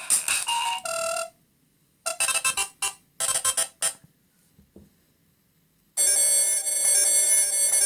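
Smartphone loudspeaker playing ringtone previews one after another: a tune cuts off about a second in, short chiming bursts follow, then after a pause another ringtone starts about six seconds in.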